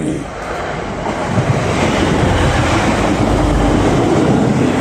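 A passenger train passing through the station: a loud rush of wheels and rumble that swells over the first second or two, then holds steady.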